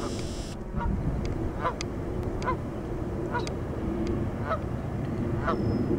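Geese honking: a string of six short honks, about one a second.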